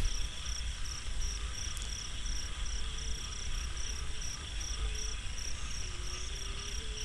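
Night field ambience: crickets chirping in a steady high-pitched pulse, a low wind rumble on the microphone, and a faint wavering drone. The drone is a bow hummer (sanu) on an Isan kite flying high, heard from about a kilometre away, which the flyers take as a sign of strong wind aloft.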